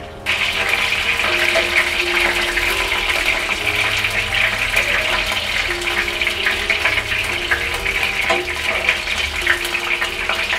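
Batter-coated lote fish (Bombay duck) chops sizzling and crackling steadily in hot oil in a frying pan. The sizzle starts abruptly just after the beginning.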